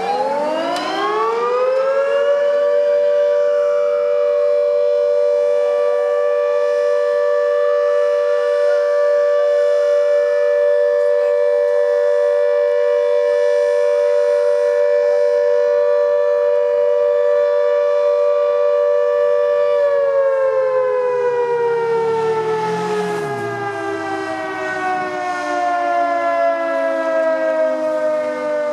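Fire station's motor siren winding up to a steady wail, holding it for about twenty seconds, then slowly winding down: the brigade's call-out siren for an emergency call. In the first half, a departing fire engine's siren wails faintly up and down.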